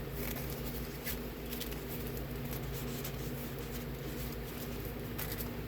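Soft paper rustling with a few faint crinkles and taps as journal pages and paper inserts are handled, over a steady low hum.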